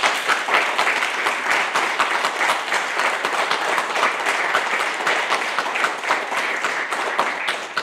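Audience of families and friends applauding, many hands clapping in a steady, even round that starts suddenly.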